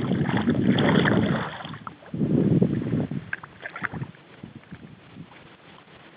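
Water sloshing and lapping close to the microphone beside a small boat, with two loud surges in the first three seconds, then small knocks and drips.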